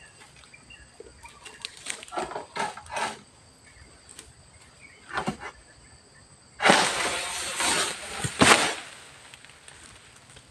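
Dry oil palm fronds rustling and scraping in short bursts, then a longer, louder rustle about two-thirds of the way through that ends in a sharp knock.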